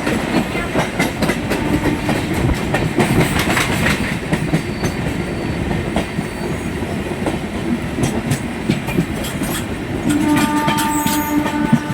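Train running along the track: a continuous rumble with the clickety-clack of wheels over rail joints. Near the end a train horn sounds a steady chord-like note for about two seconds.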